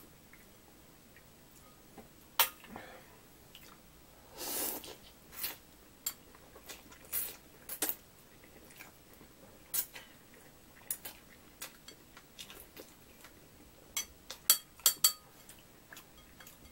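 Chopsticks clicking against a glass bowl of ramen at irregular intervals, with a short slurp of noodles about four and a half seconds in. Near the end there is a quick run of sharper, louder clicks.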